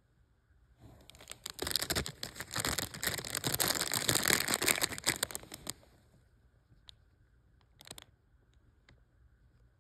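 Clear plastic bag crinkling for about five seconds as a stone is worked out of it, followed by a few separate light clicks.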